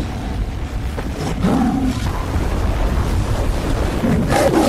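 Big cats roaring twice, about a second in and again near the end. Behind them is a steady low rumble of tornado wind.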